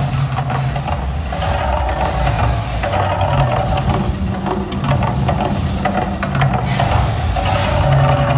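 The Mirage volcano attraction erupting: a loud, continuous low rumble with hissing whooshes from the gas fireball jets bursting across the lagoon.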